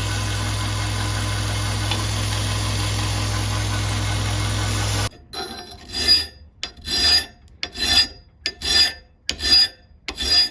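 A steady machine hum runs and cuts off abruptly about halfway through. It is followed by about seven slow, even rasping strokes of a hand file on the steel blade.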